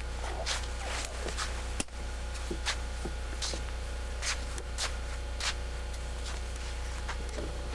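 Camcorder handling noise as the camera is carried across a wooden deck: a string of short, irregularly spaced rustles and light knocks over a steady low hum from the camcorder.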